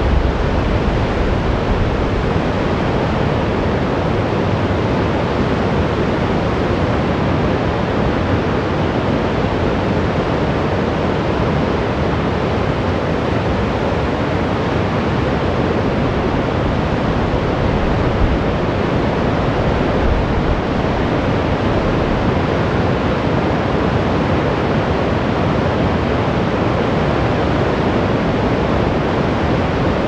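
Rapids of the James River in flood, a steady, loud rush of high water pouring through churning standing waves.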